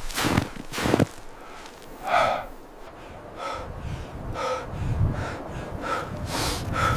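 Heavy breathing: a run of short, repeated breaths from about two seconds in, one every half second to a second. Two loud sharp sounds come in the first second.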